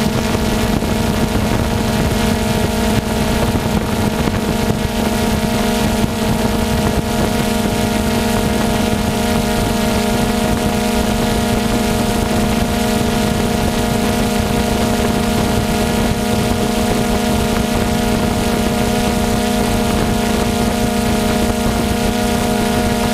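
DJI Phantom 2 quadcopter's motors and propellers spinning at a steady speed: an even, unchanging hum with several steady tones above it and a windy hiss.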